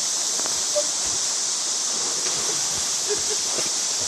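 Flooded river rushing, a steady hiss of fast-moving water.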